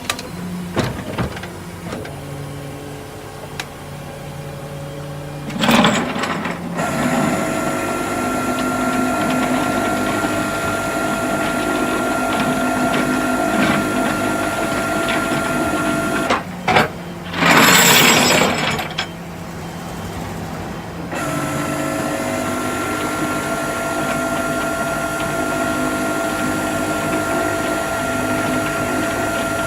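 Rollback tow truck's hydraulics running: a steady mechanical whine that stops about halfway and starts again, with two loud hissing bursts, one just before the whine begins and one in the gap.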